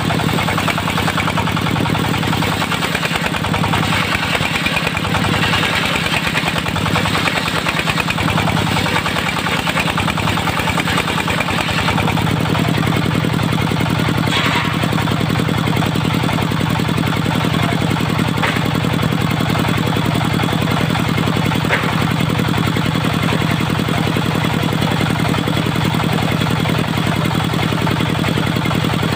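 Diesel engine of a locally built mobile circular sawmill running steadily, its note shifting a little about twelve seconds in.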